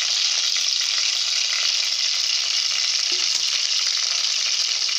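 A whole fish frying in hot oil in a metal pan: a steady, even sizzle.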